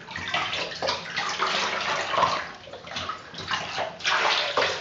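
Shallow bathwater splashing and sloshing in a bathtub as a small puppy is washed by hand, in irregular splashes that grow louder about four seconds in.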